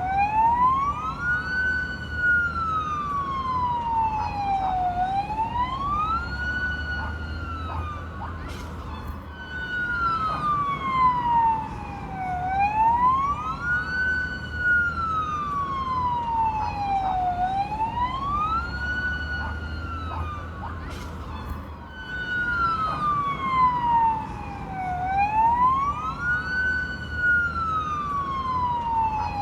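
Fire truck siren sounding a slow wail, rising for about two seconds and falling for about three, repeating roughly every five seconds, with a low rumble underneath.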